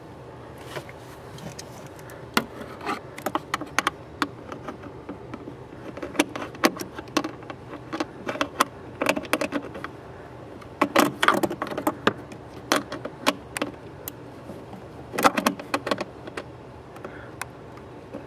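Socket wrench and metal tool clicking and clinking in short irregular bursts as the blower motor resistor pack's mounting bolt is worked loose.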